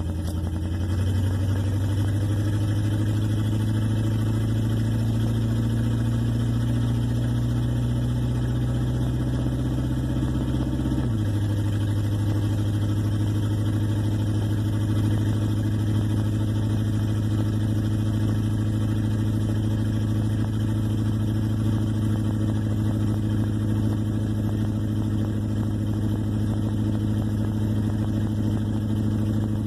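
1958 Plymouth Suburban engine running steadily while the car is driven, a low drone that shifts slightly in pitch about a second in and again about eleven seconds in.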